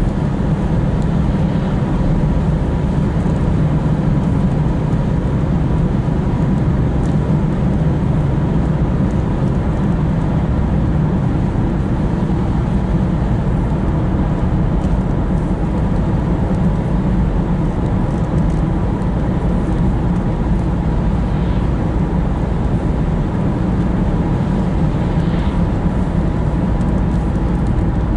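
Steady road and engine noise inside the cabin of a moving diesel car, heaviest in the low end and unchanging throughout.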